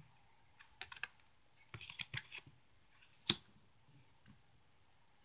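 Tarot cards being laid down and slid on a tabletop: scattered soft taps and scrapes, with one sharp card snap about three seconds in.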